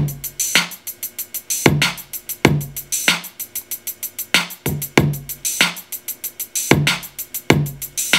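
Dirty south style drum loop playing back from a Native Instruments Maschine step sequencer: rapid hi-hat ticks several times a second, kick drum hits, and a snare layered with a clap, with open hi-hats dropped in.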